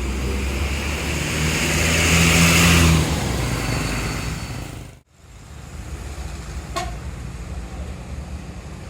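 A tour bus passes close by: engine and road noise build to a peak about two to three seconds in and then fade away. The sound cuts off suddenly about five seconds in, and quieter steady road traffic follows.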